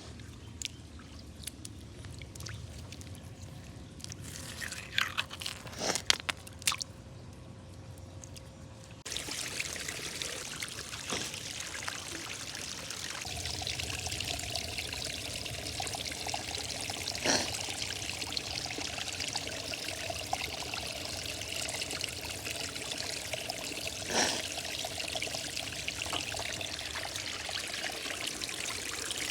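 Creek water trickling and pouring steadily, the flow noise jumping louder and fuller about nine seconds in. A few sharp clicks and knocks stand out between about five and seven seconds in.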